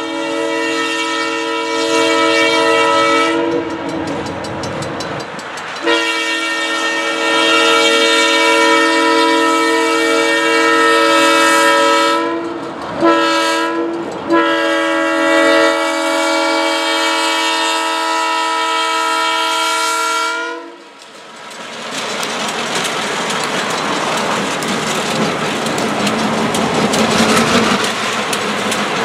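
Diesel freight locomotive's multi-note air horn blowing the level-crossing signal: a long blast ending about three seconds in, another long blast, a short one, and a final long one. Then the locomotives and freight cars pass close by with steady engine and wheel-on-rail noise.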